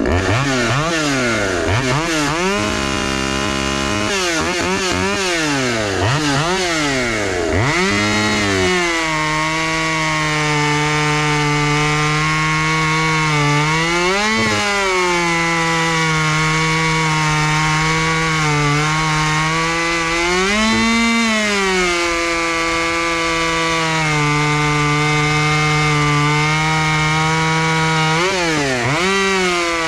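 Ported Craftsman 2.2 36cc two-stroke chainsaw with auxiliary exhaust ports, revved up and down several times, then held at steady high revs cutting spruce. Its pitch rises briefly twice midway and dips sharply once near the end.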